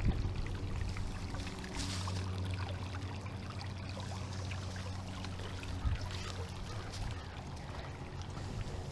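Shallow rocky creek trickling steadily over stones, with a single soft thump about six seconds in.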